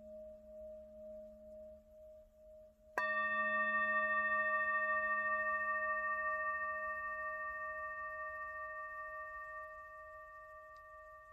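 Tibetan singing bowl held on the palm: a single tone hums and wavers about twice a second, then about three seconds in the bowl is struck once and rings with several overtones, fading slowly.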